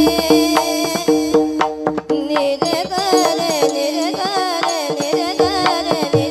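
Women's voices singing a Marathi Warkari devotional abhang over a steady drone, with strikes of brass hand cymbals (taal) and drum strokes. There is a brief break in the sound about two seconds in.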